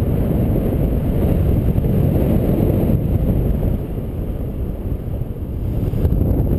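Airflow buffeting the microphone of a paraglider pilot's camera in flight: steady, low wind noise, easing slightly for a moment in the middle.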